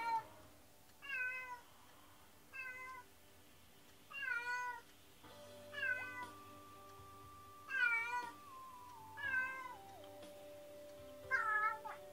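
Cat meowing again and again, about eight short falling meows roughly every second and a half: lonely crying from a cat left alone at home. Soft music with long held notes comes in about halfway.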